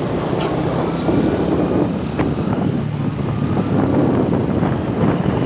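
Heavy vehicle engine running with dense street traffic noise, typical of a large bus or truck passing.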